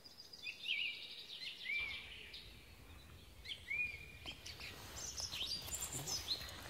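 Small songbirds singing, a string of short chirps that rise and fall in pitch, repeated every second or two. Near the end, brief rustling and scraping in dry leaves and forest litter.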